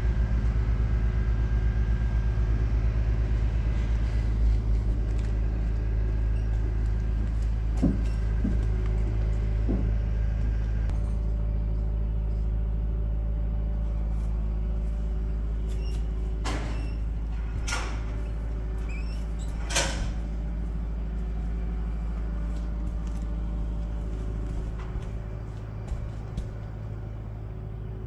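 A steady low engine or motor hum, with several sharp clicks or knocks around the middle.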